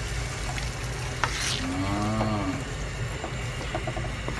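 Opor ayam (chicken in coconut gravy) cooking in a wok with a wooden spatula: a steady sizzling hiss, with a sharp click about a second in. Around halfway a short, held, humming voice sound rises and falls.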